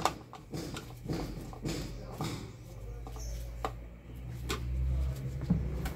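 Clicks and knocks of an electric fan's front grille being unclipped and handled, with a low rumble for a couple of seconds in the middle.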